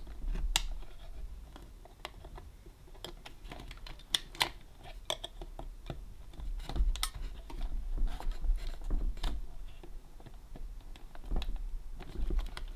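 Scattered small clicks and scrapes of hands and tools prying at a switch on a Roberts RFM3 radio, trying to lift it free, with dull bumps of handling now and then.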